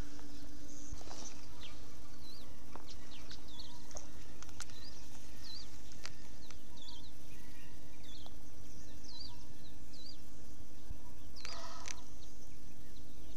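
Small birds chirping repeatedly, short high curved notes scattered all through, with a brief louder call near the end. A steady low hum and a few faint clicks run underneath.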